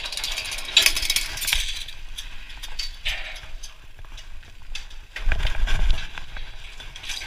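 Mountain bike ridden down a dirt trail: tyres crunching over dirt with a steady run of clicks and rattles from the bike, and a heavier low rumble about five seconds in.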